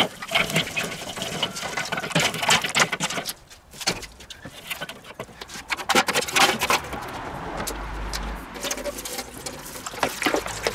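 Lit charcoal briquettes tumbling out of a chimney starter onto a kettle grill's charcoal grate with a run of clattering clinks, then a stainless steel water pan set down among the coals, rattling against the grill.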